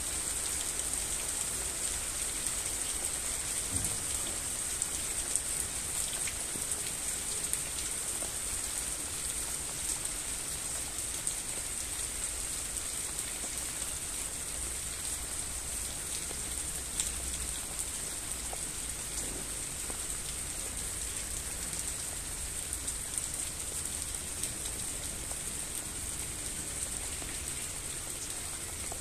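Steady rain falling: an even hiss with scattered faint drop ticks.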